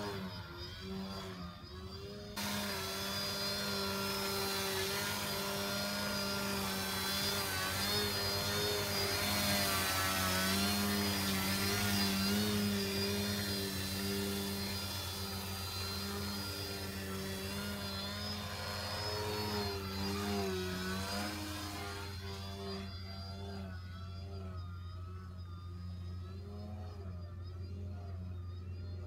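Electric motor and propeller of a Future Model Edge 540T 38-inch foam 3D RC plane buzzing, the pitch rising and falling with throttle as it hovers and manoeuvres close by. The sound turns quieter about 22 seconds in as the plane climbs away.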